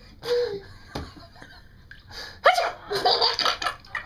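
Young child laughing in short bursts, with a loud squealing burst rising sharply in pitch about two and a half seconds in.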